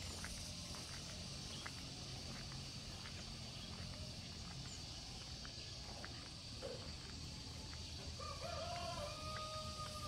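A rooster crowing once near the end, ending in a long drawn-out note, over a steady high-pitched insect drone.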